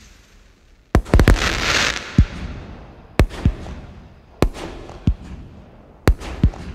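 Black Cat 'Twisted' multi-shot firework cake firing. A volley of sharp reports comes about a second in, followed by a spell of crackling hiss. After that, single and paired bangs of launches and bursts come roughly every second.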